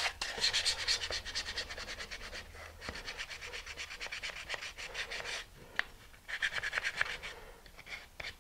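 Fine-grit sandpaper rubbed fast back and forth along the edges of a wooden fuselage boom, smoothing it, in quick even strokes with a couple of short breaks.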